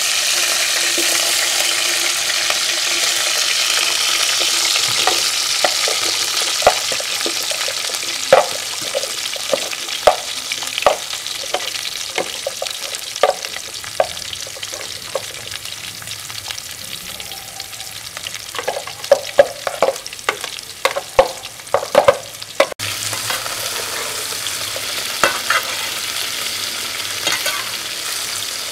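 Chopped bitter gourd sizzling as it fries in a metal pot, the sizzle loudest at first and then easing. Over it, a metal spoon and spatula scrape and clink against the pot, the clinks coming thick and fast a few seconds before the end.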